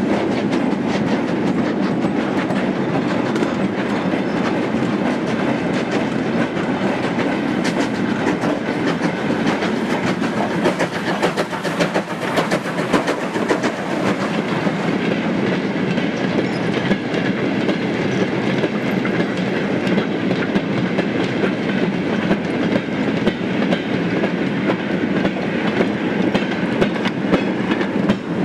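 Long rake of steel mineral wagons in a freight train rolling past close by, their wheels clattering steadily over the rail joints, with the brake van drawing away at the end.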